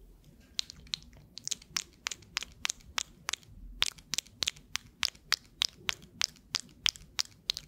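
Gum chewing close to the microphone: a quick, steady run of sharp, wet mouth clicks and snaps, several a second, starting about half a second in.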